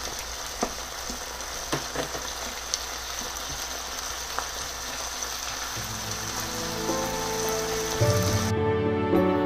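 Diced potatoes, carrots and onion sizzling in a frying pan as a wooden spatula stirs them, with a few light clicks. The sizzling stops near the end.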